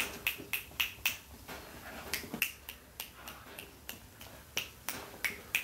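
Fingers snapping in a quick, irregular run of sharp clicks, about three or four a second.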